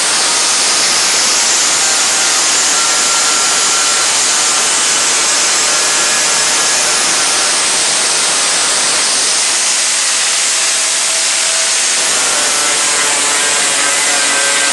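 A power tool running steadily on the steel roof panel of a 1985 Chevrolet during a sunroof fitting, a continuous loud hiss with faint whining tones through it.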